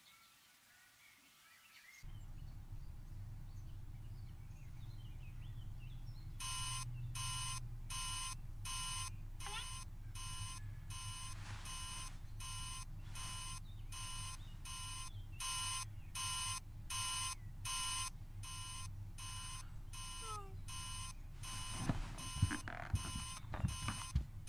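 Telephone ringing with a steady electronic beep, about one and a half beeps a second. It starts a few seconds in over a low hum and stops near the end, where a few soft thumps are heard.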